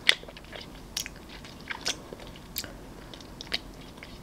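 A bite into a chocolate-coated banana ice-cream bar: a sharp crack as the hard coating breaks just after the start, then about four crisp crunches roughly a second apart as it is chewed close to the microphone.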